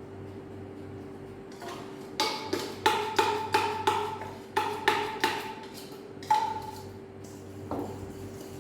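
A can of condensed milk knocked repeatedly against metal as it is emptied, about a dozen sharp taps with a short ringing note each, coming in an uneven run over several seconds, then one last softer knock near the end.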